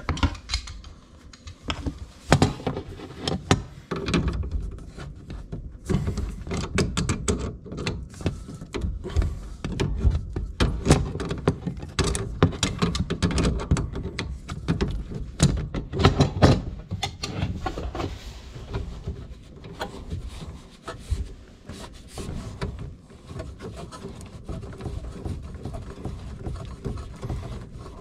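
A wrench working loose the brass water-supply fitting on a dishwasher's inlet valve: irregular metal clicks, knocks and scraping, with hand and tool handling noise.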